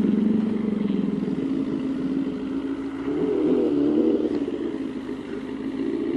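Motorcycle engine running steadily, its pitch rising and wavering for a moment about three seconds in.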